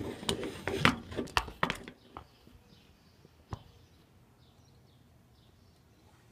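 A quick run of close knocks and clicks as the phone and its mount are handled. After that, quiet outdoor air with faint bird chirps and one more light click.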